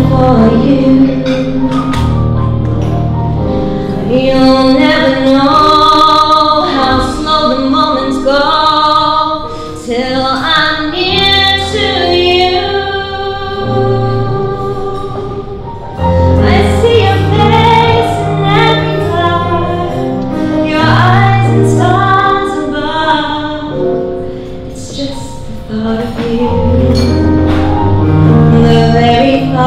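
A woman sings a song solo into a handheld microphone over an instrumental accompaniment, which holds long low bass notes under her voice.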